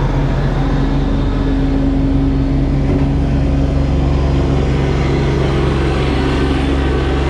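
Diesel engine of a working tractor running at a steady speed, with its low hum growing stronger about halfway through.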